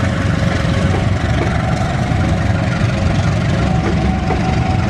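Diesel-hauled passenger train moving past close by, its coaches rolling on the rails: a steady low rumble of wheels on track mixed with the locomotive's engine.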